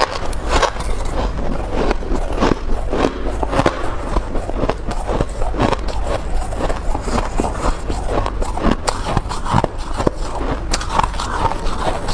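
Close-miked crunching of soft white ice being bitten into, many sharp crisp crunches a few each second at an uneven pace.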